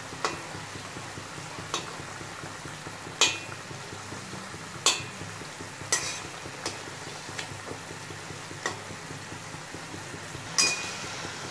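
A metal spatula clinking and scraping against a metal kadai, about nine irregular knocks with the loudest near the end, as hilsa pieces are turned and stirred in mustard gravy. Under it the gravy sizzles steadily in the pan.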